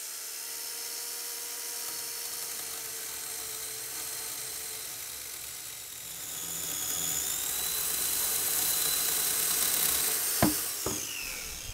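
Corded electric chainsaw running with a high whine as it cuts through the end of a rough-sawn oak beam, growing louder about halfway through as it bites into the wood. Near the end the whine falls in pitch as the saw winds down, with a couple of knocks.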